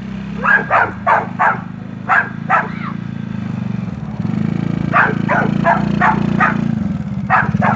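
A dog barking in three quick runs of short barks at a passing ATV, over the steady running of a Coolster 110 kids' four-wheeler engine. The engine grows louder about four seconds in as the quad comes close.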